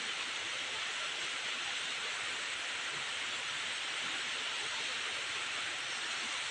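Steady hiss of chopped bitter gourd frying in a wok over a portable gas burner mounted on an LPG cylinder, the sizzle and the burner's flame blending into one even sound.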